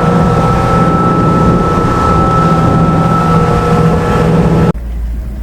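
Fishing boat's engine running steadily under way, with wind on the microphone. Near the end the sound drops suddenly to a quieter low rumble.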